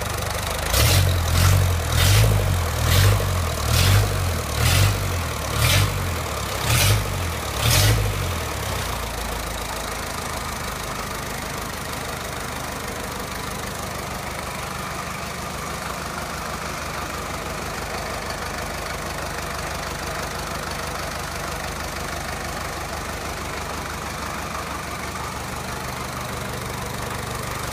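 Land Rover Series 2a's four-cylinder diesel engine revved in about eight quick blips, roughly one a second, then settling to a steady idle. It is running smoothly and clean after its injectors were serviced and the injector pump was advanced, no longer running too rich.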